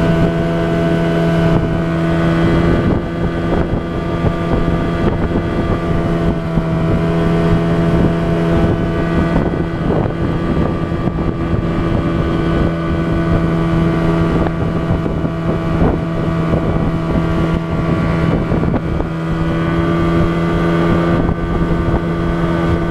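Small boat's outboard motor running steadily at one speed while under way, with wind noise on the microphone.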